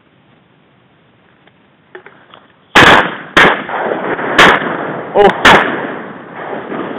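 Duck hunters' shotguns firing at passing ducks: four loud shots over about three seconds, starting nearly three seconds in, each followed by a long rolling echo.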